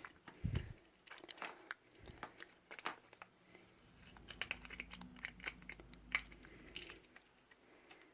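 Faint, irregular clicks and crinkling of small plastic parts and a ribbon cable being handled and pushed into place while an action camera is put back together.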